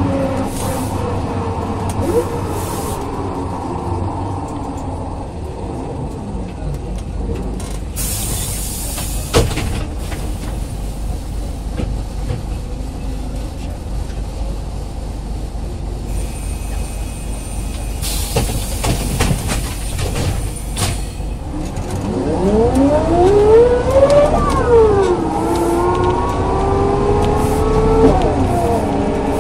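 City bus with a DAF LT 160 diesel and ZF 4HP 500 automatic gearbox. It slows with a falling whine, gives bursts of compressed-air hiss from its pneumatics, then pulls away with a loud rising gearbox and engine whine. The whine drops sharply at an upshift about two-thirds of the way in and again near the end.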